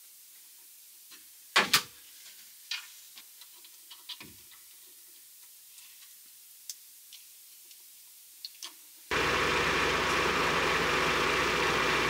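A few scattered light clicks and knocks, the loudest a sharp double knock near the start; then, after an abrupt cut about nine seconds in, a Mazda Miata's four-cylinder engine idling steadily and loudly.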